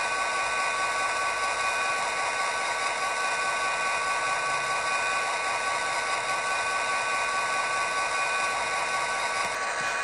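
DCC sound decoder in an N gauge Class 67 diesel model playing the locomotive's engine running steadily through its tiny speaker. It comes across as a tinny hiss with a high steady whine, switching on suddenly.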